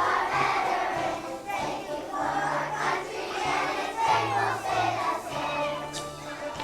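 Young children singing together as a choir, over a musical accompaniment with held bass notes.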